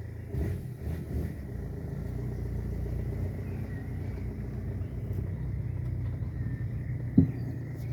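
BMW E46 320d's four-cylinder diesel engine running steadily, with a few knocks in the first second and one sharp clunk about seven seconds in. The owner hears this strange noise only under load and suspects the driveshaft is not tightened enough to the differential.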